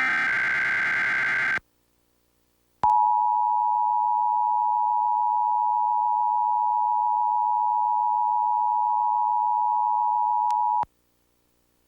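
A DASDEC-II EAS encoder sends the last burst of its SAME header: a raspy digital data screech lasting about a second and a half. About a second later comes the Emergency Alert System two-tone attention signal, a steady harsh dual tone held for about eight seconds that stops abruptly. This sequence marks the start of a required monthly test alert.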